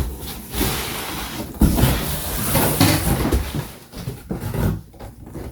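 Plastic parts of a covered cat litter box and its cardboard packaging being handled: rustling with knocks, the loudest about a second and a half in.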